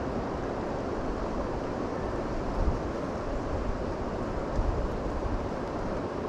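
Steady rush of a high-running river, with wind buffeting the microphone in low, uneven rumbles.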